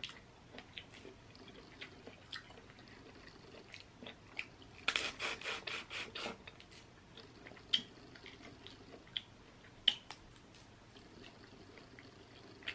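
Close-miked eating of boiled crawfish: scattered wet clicks and a quick run of clicks about five seconds in, from shells being peeled and meat chewed.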